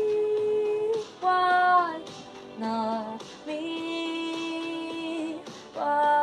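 A woman singing a string of long held notes without words, each about a second long with short breaks between them.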